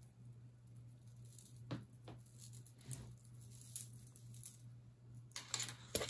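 Jewelry handled by hand while being sorted from a tangled box: a few light clicks and clinks of metal pieces and chains, then a busier run of clinking and rustling near the end.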